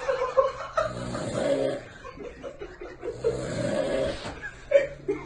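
A person snoring, with a snore about every two seconds: three snores, each lasting about a second.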